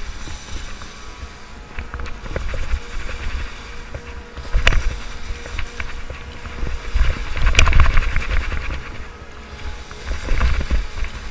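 Wind buffeting the microphone, with scraping and two loud knocks, about four and a half and seven and a half seconds in.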